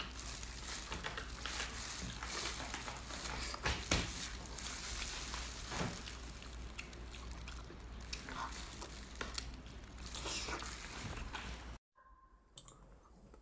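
A person eating close to the microphone: slurping and chewing with wet, squishy clicks. The sound cuts off abruptly near the end.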